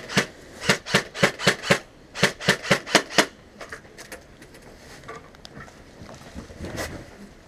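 Airsoft fire: rapid sharp cracks about four a second, in three quick bursts over the first three seconds.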